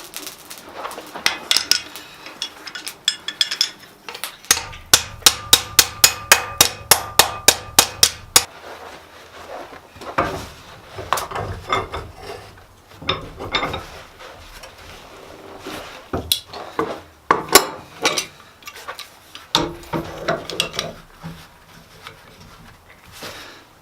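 Hammer striking steel on an anvil: a fast, even run of about a dozen ringing blows in the middle over a low hum, between scattered knocks and clinks of metal.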